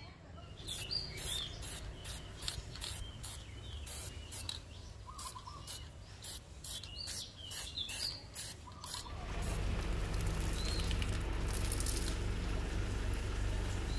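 Aerosol spray can fired in short quick bursts, about three a second, onto a steel axe head. Birds chirp in between. From about nine seconds in, a steady low rumble takes over.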